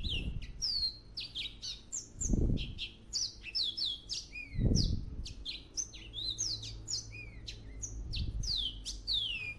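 Birds chirping busily: many quick, high, falling chirps overlapping one another, with two short, louder low thumps about two and a half and five seconds in.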